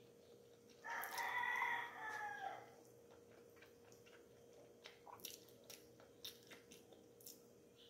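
A rooster crowing once, faint, starting about a second in and lasting about two seconds. Afterwards, small clicks and smacks of eating rice by hand and chewing.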